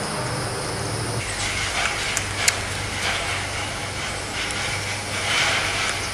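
Gray squirrel cracking and chewing sunflower seeds close up: scattered sharp clicks and crackly crunching, starting about a second in and again near the end. Under it runs a steady low hum.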